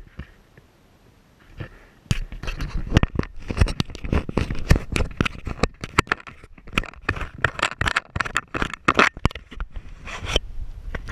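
Fingers handling a GoPro camera and its housing close to its microphone: a dense run of scrapes, clicks and knocks. It starts about two seconds in and eases off shortly before the end.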